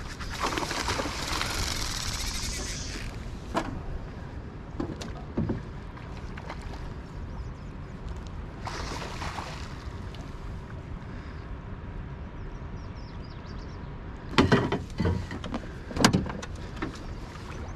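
Steady low rumble of wind on the microphone over open water, with bursts of hiss and a couple of loud knocks near the end.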